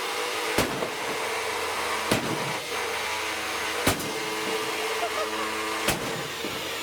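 Dirt Devil vacuum cleaner motor running steadily. Four sharp knocks land on or near it at roughly two-second intervals.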